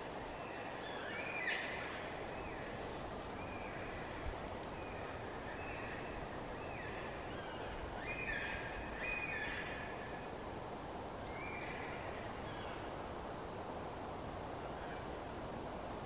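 Yellow-tailed black cockatoos squealing, with short calls repeated every second or two, over a steady roar of wind in the tree branches.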